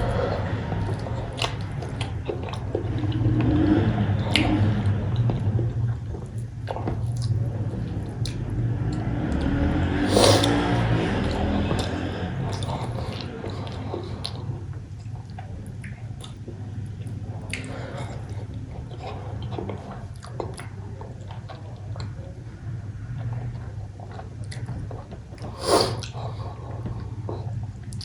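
A man chewing and biting mouthfuls of cooked goat brain, with wet mouth sounds and scattered clicks. A steady low hum runs underneath.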